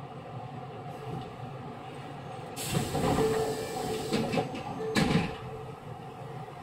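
Inside a refurbished Osaka Metro 66 series train car: the steady hum of the train's equipment, broken about two and a half seconds in by a loud burst of noise with a steady tone in it, lasting about two and a half seconds.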